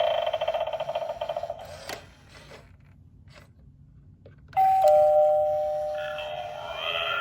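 Gemmy animated eyeball novelty doorbell playing through its small speaker: a fast-wavering electronic sound stops with a click about two seconds in. After a short lull, a two-note falling ding-dong chime sounds about four and a half seconds in, and a rising electronic warble follows near the end.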